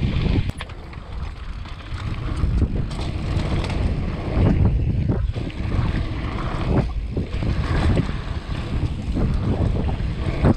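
Wind buffeting the microphone of a downhill mountain bike rolling fast over a dirt and gravel trail, with tyre noise on the loose surface and small knocks and rattles from the bike over bumps.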